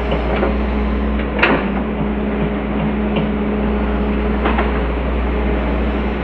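Hitachi excavator's diesel engine running steadily under a low drone, with a held tone over it that stops about two-thirds through and two sharp metallic clanks, the loudest about a second and a half in.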